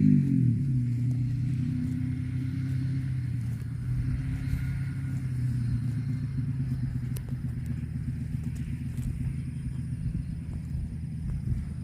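A cow mooing low and long: the pitch drops at the start, then holds steady as a low drone that fades out after about seven seconds.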